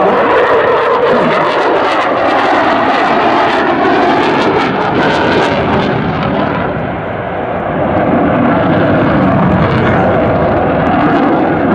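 Eurofighter Typhoon's twin Eurojet EJ200 turbofans, loud jet noise from the fighter manoeuvring overhead. The sound dips slightly about seven seconds in as the jet turns away, then swells again.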